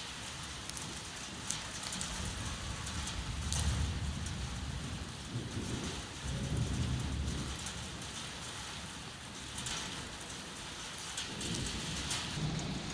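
Steady rain falling with an even hiss, with low rumbles swelling and fading a few times.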